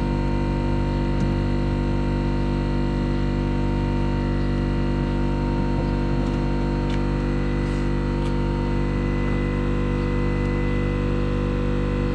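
A motor or engine running steadily at constant speed: an unchanging hum with several fixed pitches, with a few faint clicks over it.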